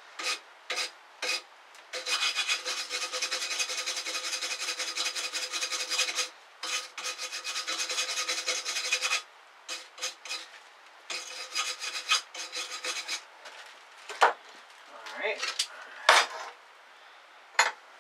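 Hand wire brush scrubbing a freshly welded steel knife tang to clean up the weld, in quick back-and-forth strokes: one long spell, then after a short pause a shorter one. Separate sharp clicks and taps of metal come before and after the brushing.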